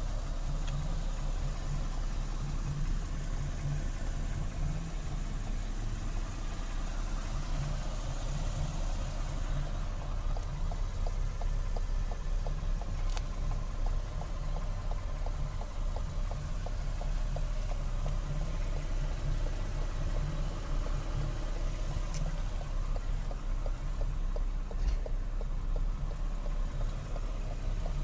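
2013 Lexus GS F-Sport's engine idling steadily: a low, even hum, with a faint rapid ticking running through it from about a third of the way in.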